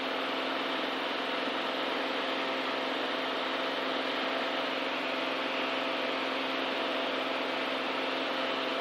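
Beechcraft A36 Bonanza's piston engine and propeller at climb power: a steady, unchanging drone with hiss and a few fixed hum tones, heard through the cockpit intercom.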